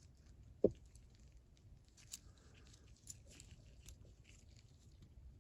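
Small metal parts of a hand ratchet being handled and fitted together during reassembly: light clicks and scraping, with one sharp knock a little under a second in.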